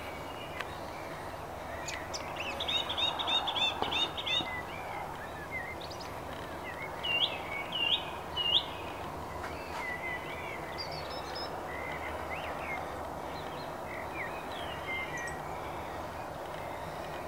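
Songbirds singing in turn: a quick run of repeated notes about two seconds in, a few sharp upward-swept calls around seven to eight seconds, then scattered warbling phrases, over a steady low background hum.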